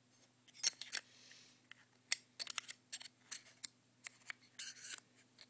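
Light, irregular clicks and taps from hands handling an Apple Magic Mouse and its packaging, with a short rustle near the end.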